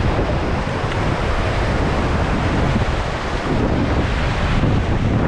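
Whitewater of a river rapid rushing and splashing around a raft, with heavy wind noise on the microphone: a loud, steady rumble.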